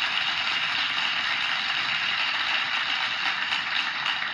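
Canned applause sound effect from the Touchcast app, a crowd clapping steadily, played through the iPad's own speaker.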